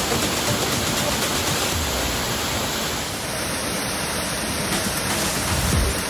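Steady rush of a small waterfall, water pouring in chutes over a rock ledge into a plunge pool.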